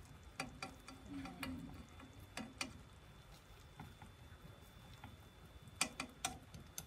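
Wooden chopsticks clicking and tapping against a nonstick frying pan as a thin egg omelet is worked. There are several sharp clicks in the first three seconds and another quick cluster near the end, over a faint background.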